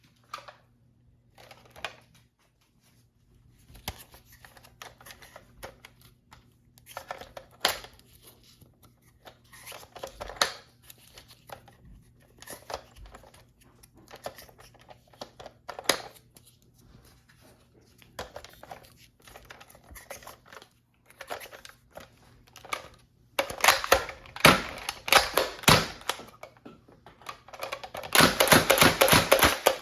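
Scattered sharp plastic clicks and rustling handling noises, then two long runs of rapid clicking, several clicks a second, near the end.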